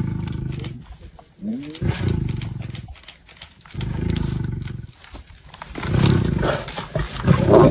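Big cat roaring: a series of low calls, each about a second long, coming about every two seconds.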